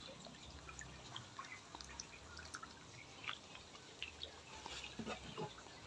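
Faint scattered plinks and bubbling of water in an aerated tarpaulin fish pond, as air from the aerator lines breaks at the surface, over a faint low rumble.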